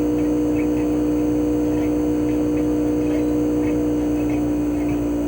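CHOFU AE-2844PX mini-split air conditioner outdoor unit running in cooling mode: its GMCC single-rotary inverter compressor hums steadily, with the propeller fan's rushing air behind it.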